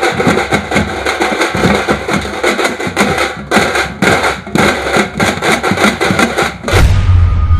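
A troupe of large stick-beaten double-headed drums playing a fast, dense saavu kuthu funeral rhythm. Near the end the drumming cuts off and a deep low rumble takes over.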